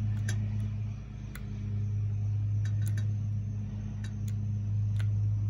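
A steady low hum, with light clicks now and then as crimp connectors and meter probe leads are handled.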